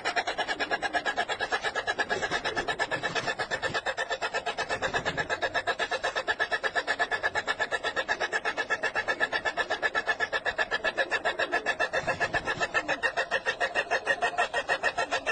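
A car engine cranking on its starter without catching: a steady, rapid, even chugging that keeps on without the engine firing.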